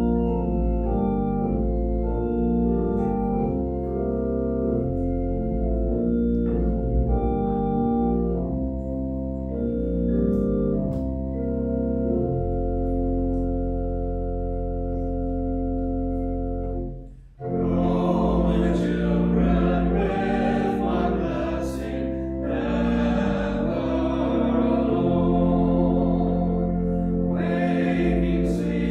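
Organ playing sustained chords. After a brief break about two-thirds of the way in, a small choir starts singing, with the organ accompanying.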